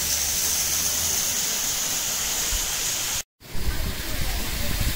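A small mountain waterfall splashing over rocks: a steady rush of water. A brief silent gap comes about three seconds in, and after it the rush is louder and deeper.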